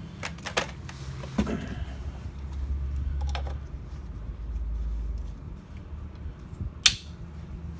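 Scattered clicks and knocks from handling the chainsaw's bar-oil bottle and reservoir cap after refilling, with one sharp snap near the end. A low rumble comes and goes in the middle.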